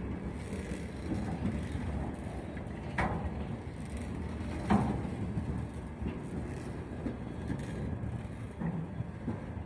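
Open gondola wagons of a long freight train rolling past as it gathers speed, a steady rumble of wheels on rails. Two sharp knocks come about three and just under five seconds in, the second the louder.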